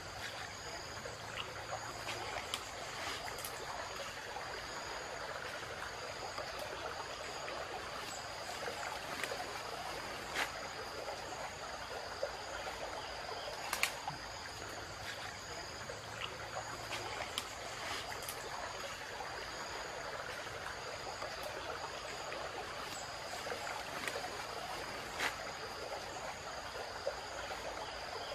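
Steady forest ambience of a running stream and insects holding two steady high tones, with scattered sharp clicks and snaps from a bamboo stick poking through dry leaf litter and roots.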